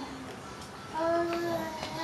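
Toddler vocalizing: one held, sing-song "aah" about a second in, steady in pitch, after a quieter moment.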